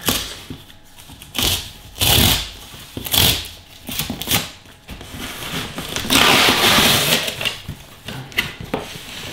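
Cardboard shipping box being opened by hand: several short bursts of scraping and rustling from tape and cardboard, then a longer one lasting about a second, about six seconds in.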